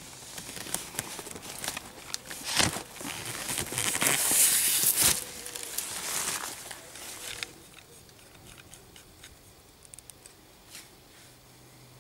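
Crossbow bolt with a hunting broadhead being worked free of a stack of corrugated cardboard: cardboard scraping and tearing, loudest about four to five seconds in, with a couple of sharp knocks, then quieter rustling after the bolt comes out.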